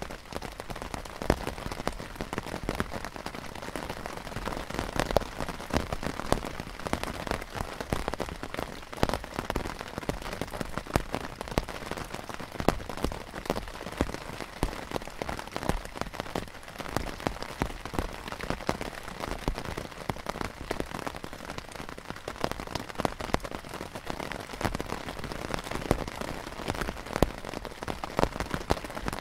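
Steady heavy rain pattering on the canvas of a Polish poncho tent (lavvu), with a dense run of sharp individual drop hits.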